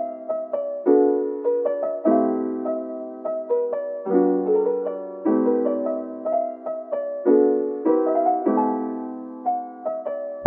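Background music: a gentle piano piece, chords and melody notes struck in turn and dying away between strikes.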